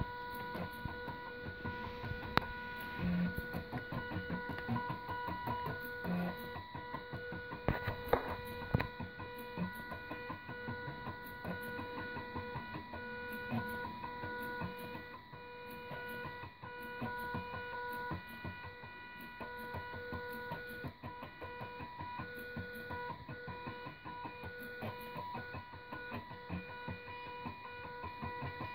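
Stepper motors from two salvaged DVD drives driving a homemade pen plotter, whining in a steady high buzz that keeps breaking off and restarting as the pen changes direction, with scattered light clicks.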